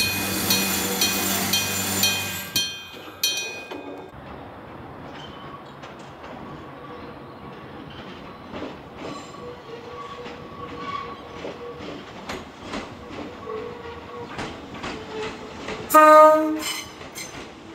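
Fujikyu 6000-series electric train (ex-JR 205 series) running past close by, then fading. A train approaches from a distance, its wheels clicking faintly over the rail joints, and near the end it gives one short, loud blast on its horn.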